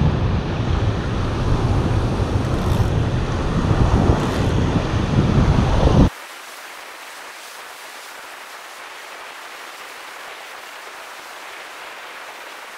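Waves breaking and washing over a rocky reef, with wind buffeting the microphone. About six seconds in, this cuts abruptly to a much quieter, steady hiss of distant surf.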